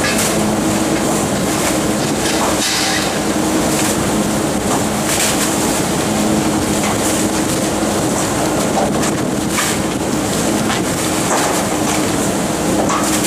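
Rotary-type garbage truck's packer running continuously with a steady hum, while bags of refuse tumble in the hopper with scattered knocks and rustles.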